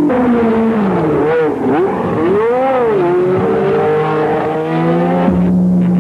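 Race car engines at speed, their pitch swinging down and up several times. A steady low tone comes in about five seconds in.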